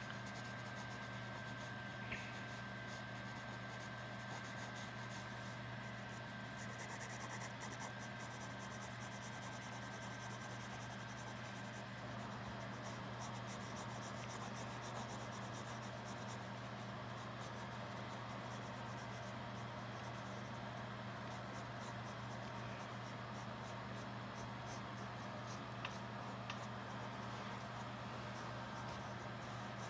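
A Dixon Ticonderoga graphite pencil scratching across sketchbook paper in quick short strokes as fur is shaded in, over a steady low hum.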